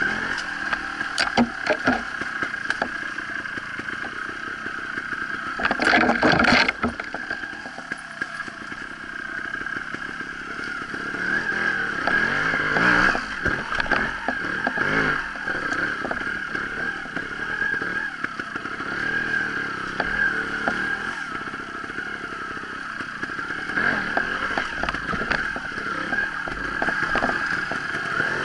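Sherco trials motorcycle engine running and revving in short bursts, loudest about six seconds in, with clattering and scraping knocks as the bike is ridden over the trail.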